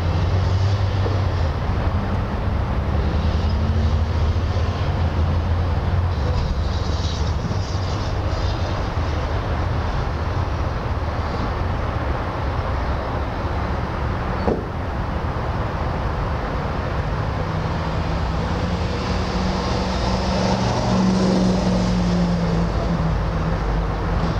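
A steady low engine rumble with a humming drone that shifts in pitch partway through, and one sharp click about halfway.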